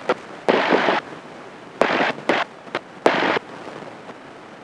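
Short bursts of hiss and static cutting sharply in and out over an aircraft headset intercom and radio, four times, with a few sharp clicks between them.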